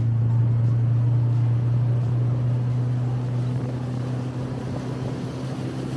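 Small fishing boat's outboard motor running under way, a steady low hum at an even pitch that eases slightly in level partway through.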